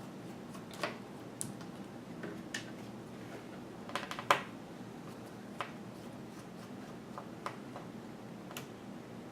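Scattered small clicks and taps of a small screwdriver working the screws that hold a laptop's LCD panel, with a cluster of sharper clicks about four seconds in.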